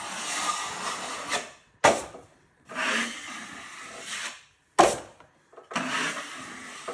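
Drywall knife scraping across wet joint compound in long, even strokes of about a second and a half, three in all, with a sharp clack between strokes.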